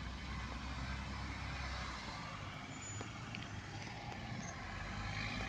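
Steady outdoor background noise: a low rumble under an even hiss, with no distinct event.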